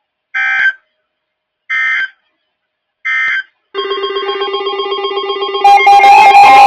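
Weather radio sending the EAS end-of-message code: three short bursts of digital data tones about a second and a half apart. A fast-pulsing ringing tone follows, and louder music comes in near the end.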